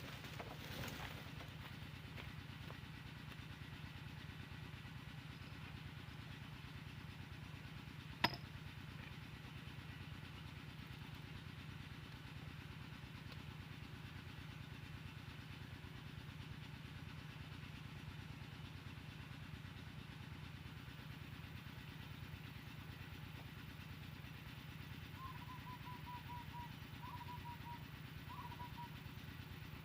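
A small engine running steadily in the background, with one sharp click about eight seconds in and a series of short, high chirping notes near the end.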